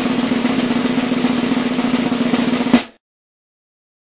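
Snare drum roll that ends on one louder stroke and cuts off suddenly about three seconds in.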